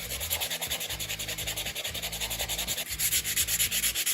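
Quick back-and-forth rubbing of an abrasive on wood, in an even rhythm of about seven strokes a second.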